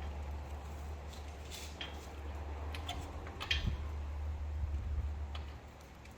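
A few sharp metallic clicks, scattered and unevenly spaced, from a hand torque wrench tightening a 4Runner's wheel lug nuts. They sit over a low steady hum that stops shortly before the end.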